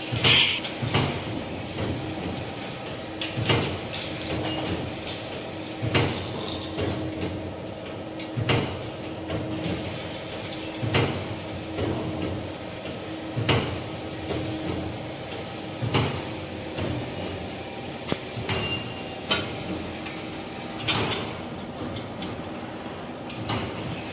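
Automatic band saw blade sharpening machine running, its motor humming steadily with a short knock about every two and a half seconds as it cycles.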